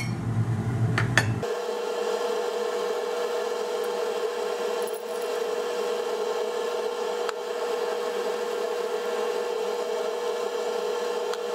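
Powdered trichloroisocyanuric acid pool-chlorine tablets being scraped out of a porcelain mortar and poured off folded paper into a glass flask: a faint rubbing and scraping with a few light clicks. A steady hum sits behind it from about a second and a half in.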